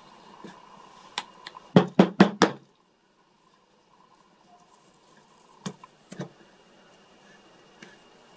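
Sharp knocks and taps from small hard objects being handled on a workbench: a quick run of four about two seconds in, and two more near six seconds.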